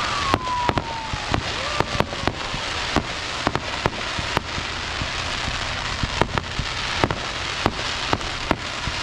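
Fireworks display: a quick, irregular run of sharp bangs and pops over a steady crackling hiss, with two whistles falling in pitch in the first few seconds.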